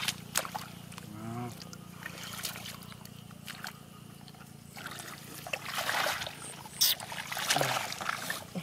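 Hands splashing and sloshing in shallow muddy water while groping for catfish, in uneven bursts with a quieter stretch in the middle, and a sharp knock about seven seconds in.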